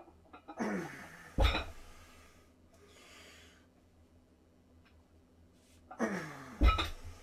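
A man straining through two heavy curl reps on a strap handle. Each rep brings a grunt that falls in pitch, then a heavy thud under a second later as the weight comes down. Hard breathing runs between the reps.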